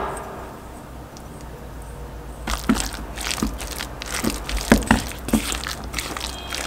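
Thick zucchini fritter batter being stirred in a stainless steel mixing bowl, a utensil scraping and clicking irregularly against the metal, starting about two and a half seconds in.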